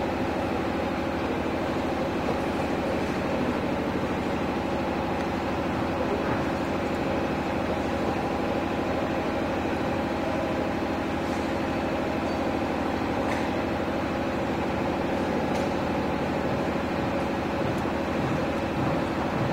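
A steady mechanical hum made of several held tones, unchanging in level, with a few faint clicks now and then.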